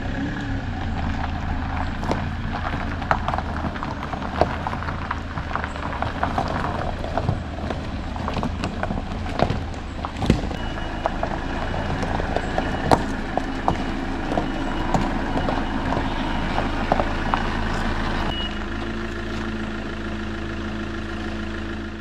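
A motor vehicle running steadily, its engine hum mixed with many small rattles and knocks; the sound cuts off suddenly at the end.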